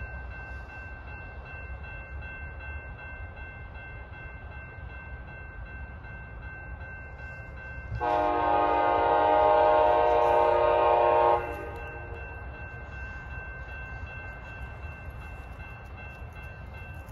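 Distant locomotive air horn on the approaching Canadian Pacific Holiday Train, one long chord blast of about three and a half seconds, starting about eight seconds in and stopping sharply. A steady low rumble runs underneath.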